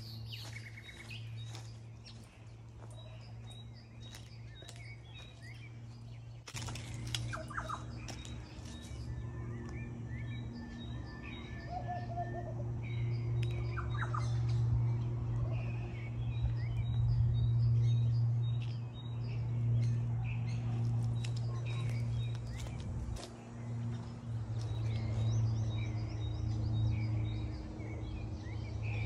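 Birds chirping and calling, many short calls, over a steady low machine hum.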